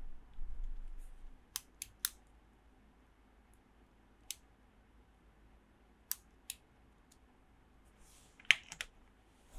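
Small plastic toy pieces being handled: a soft rumble of handling at first, then scattered sharp clicks and taps, three in quick succession about two seconds in and a tight cluster near the end.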